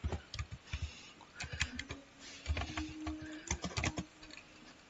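Typing on a computer keyboard: a short run of irregular keystrokes that stops about four seconds in.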